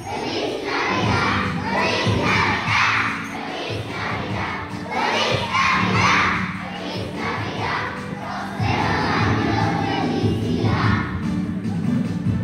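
A group of young children singing loudly in unison, half shouting, over a recorded backing track, in surges every second or two.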